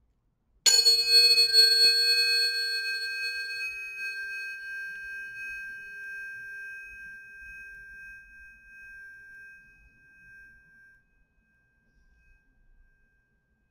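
A pair of sound-healing tuning forks struck once, giving a bright metallic ping and then a clear ringing of a lower and a higher tone. The lower tone dies away within a few seconds. The high tone rings on, slowly fading, for about ten seconds.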